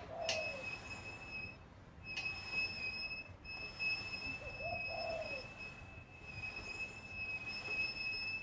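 A dove cooing twice, about five seconds apart, over a steady high-pitched whine that breaks off briefly a couple of times.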